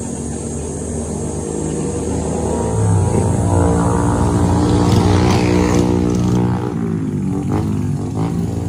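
Engine of a motor vehicle, swelling louder toward the middle and then fading, as if passing by.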